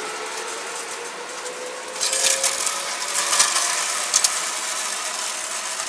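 Zipline trolley pulleys running on the steel cables as riders speed down the line. A faint whine slowly rises in pitch, and from about two seconds in there is a louder hissing metallic rattle with clicks.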